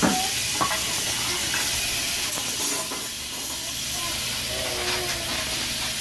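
Steady hiss of a lit gas stove burner heating a pot of gelatin mixture, with one sharp knock right at the start.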